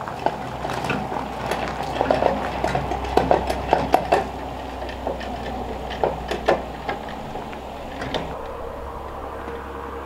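Portable wood chipper being wheeled over gravel and dirt, its sheet-metal hopper and frame rattling and clanking with each bump over a low rumble. The clatter is busiest in the first four seconds or so and thins out after that.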